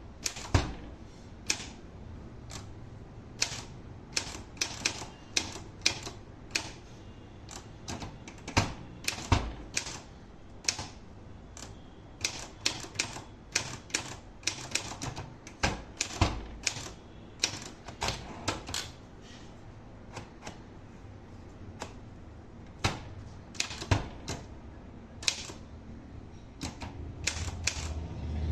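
Olympia Traveller portable manual typewriter being typed on: irregular sharp key strikes, a few a second, with a pause of about three seconds a little past the middle.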